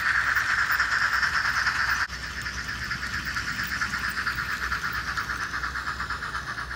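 Simulated steam-locomotive chuffing played from the DCC sound decoders (LokSound 4 running a JNR C11 sound project) of two double-headed HO-scale model steam locomotives, a KATO C56 and a Tramway C12, as they run with a train: a steady, quick, even chuff rhythm, quieter from about two seconds in.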